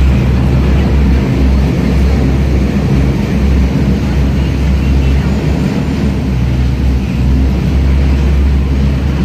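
Boat taxi's engine running under way across the lake: a loud, steady low rumble.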